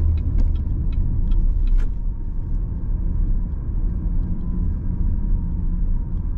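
Car driving slowly, heard from inside the cabin: a steady low rumble of engine and road noise, with a few light clicks in the first two seconds.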